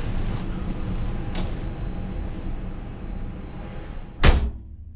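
Aircraft towing tractor idling with a low steady rumble, then a single loud bang of a cab door shutting about four seconds in.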